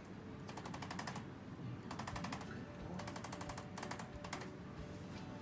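ArthroStim electric chiropractic adjusting instrument firing rapid taps, about a dozen a second, in several short bursts against a cat's spine to tap the vertebrae back into alignment.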